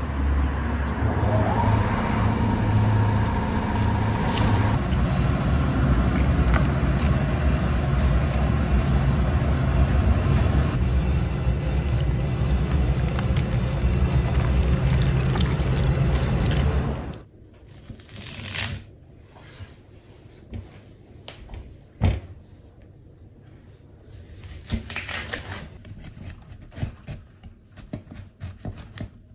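Water from a garden hose running and splashing steadily while bamboo shoots are washed and scrubbed. A little past halfway this cuts to quieter knife strokes slicing through a bamboo shoot on a wooden cutting board, with one sharp knock of the blade on the board.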